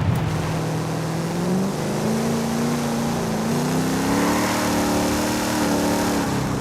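1968 Dodge Dart Hemi Super Stock's 426 Hemi V8 running, its pitch climbing from about two seconds in and easing back down near the end as the revs rise and fall.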